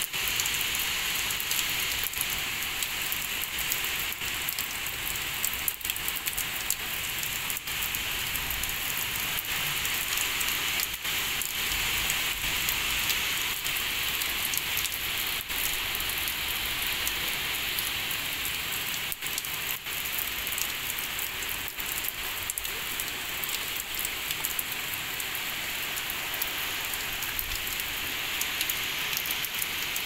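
Heavy rain from a cyclonic storm falling steadily: a dense, even hiss with the sharp ticks of single drops striking close by.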